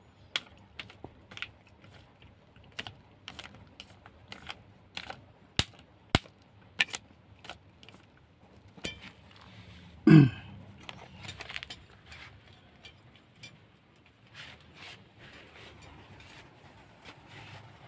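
Dry cat kibble clicking and crunching while a cat eats from a plastic sheet: irregular sharp clicks, about one or two a second. About ten seconds in comes one louder, short sound that falls in pitch.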